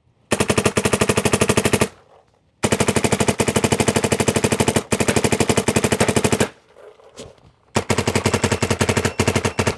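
Dye MXR electronic paintball marker firing rapid strings of shots, three long runs with short pauses between, shooting through a pod of paintballs.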